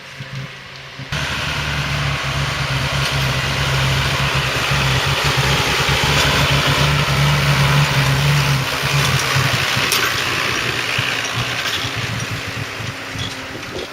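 Heavy diesel silage machinery running close by. Its engine note comes in abruptly about a second in, builds to its loudest around seven to eight seconds, then eases off as it moves away.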